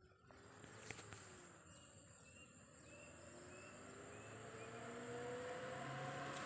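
Suzuki Mega Carry pickup fitted with a 'wolf' whistle exhaust, approaching: a faint howling tone that slowly rises in pitch and grows louder. There is a sharp click about a second in.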